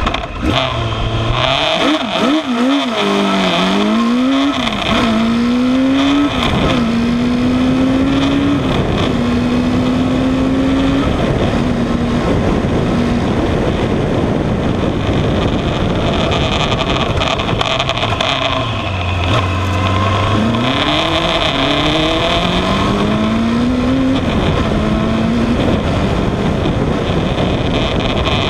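Onboard sound of the Terrapin ZZR 1100 single-seater's motorcycle engine, a Kawasaki ZZR1100 inline-four, launching hard and revving up through several quick upshifts, each a rising pitch then a drop. It then holds high revs. About two-thirds of the way through, the revs fall away and climb again through more gear changes.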